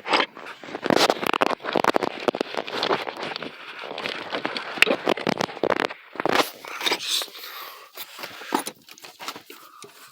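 Small tools and plastic parts handled close up and worked open by hand: a busy, irregular run of clicks, scrapes and rattles.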